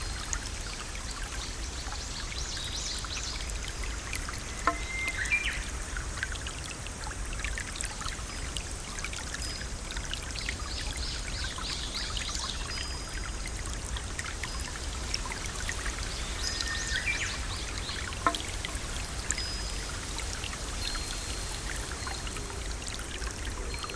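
Waterfall: a steady rush of falling water, with scattered short high chirps and trills and a couple of sharp clicks over it.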